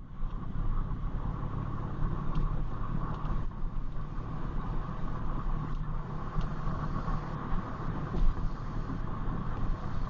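Car being driven, heard from inside: steady engine and road rumble with an even mid-pitched hum over it.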